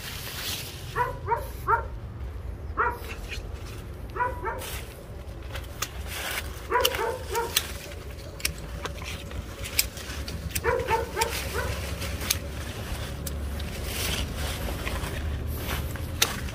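A small dog yapping in short runs of two to four high barks, several times over. Between them come sharp clicks from hand pruning shears snipping branches.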